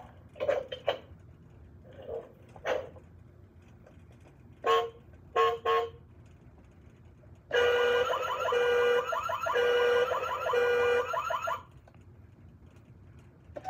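Battery toy car's sound chip playing electronic sound effects through its small speaker as its roof buttons are pressed. A few short honk-like beeps come first, then a loud pulsing alarm-like effect lasting about four seconds.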